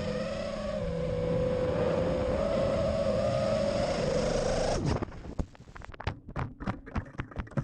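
iFlight XL5 FPV quadcopter's brushless motors and propellers whining at a high, slightly wavering pitch, the oscillation the owner puts down to gyro noise. About five seconds in the motor sound cuts off suddenly and a quick, irregular run of sharp knocks and clatters follows, the quad crashing and tumbling.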